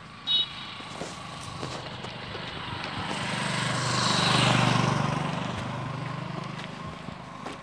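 A motor vehicle passing on the road: its engine and tyre noise grow louder to a peak about four and a half seconds in, then fade away. A short, high beep sounds just after the start.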